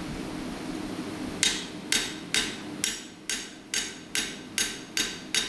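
Light, even blows of a cross-peen hammer's flat face on a hot steel bar lying on the anvil, starting about a second and a half in and going on at a little over two a second. These are finishing blows, spreading the bar's end into a fishtail taper.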